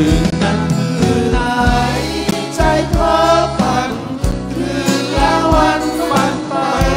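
Live band playing a song: strummed acoustic guitars, a steady drum beat, and a man singing into a microphone.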